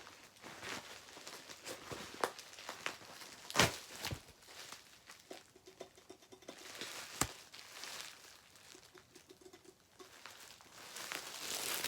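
A mailed package being handled and opened by hand: scattered rustling, scraping and small clicks of packaging, with two sharper knocks, about three and a half and seven seconds in.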